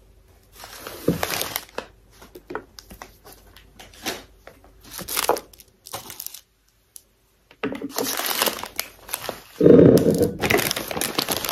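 Plastic candy-bar wrappers and snack packaging crinkling and rustling as they are handled and shifted on a table. It comes in a string of short bursts, then a longer, louder stretch near the end.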